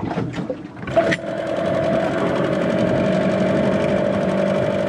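Small two-stroke outboard motor starting up about a second in, then running at a steady idle of about 730 rpm in neutral. The owner thinks this idle speed is low and suspects it is why the engine stalls at idle.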